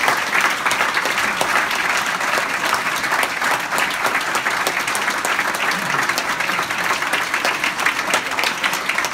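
Audience applauding, a dense, steady clapping that keeps up without letting up.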